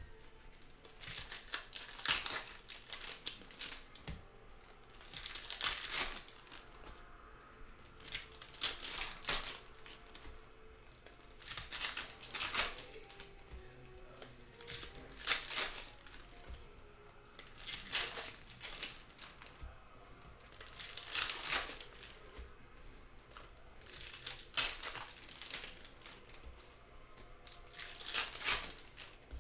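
Foil trading-card packs (Panini Donruss Optic retail) being ripped open one after another: a crinkling tear roughly every three seconds.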